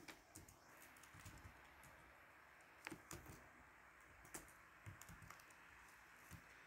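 Faint typing on a computer keyboard: scattered, irregular keystrokes with short pauses between them.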